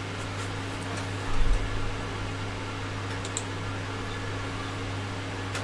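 Steady low hum of a small room, with one dull low thump about a second and a half in and a few faint small clicks around three seconds in, from hands handling small parts on a desk while square nuts are fitted into a plastic 3D-printer LCD housing.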